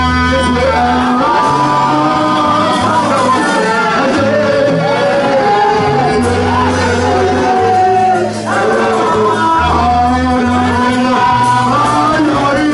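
Live gospel worship music: a man sings over an amplified microphone, with keyboard accompaniment holding long bass notes that change every second or so. The music dips briefly about eight seconds in.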